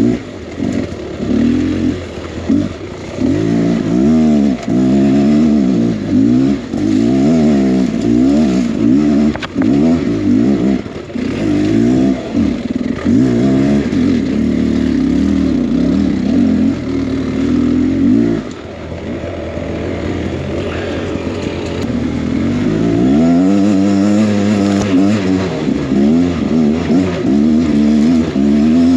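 Two-stroke 300 cc enduro dirt-bike engine under constant throttle changes, the revs rising and falling over and over. It settles to a lower, steadier run about two-thirds through, then climbs again.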